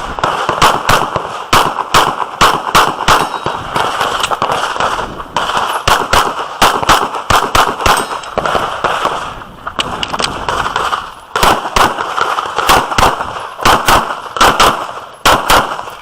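Competition pistol fired in rapid strings of shots, with short pauses between strings, shooting match-grade competition ammunition loaded to a power factor of about 130.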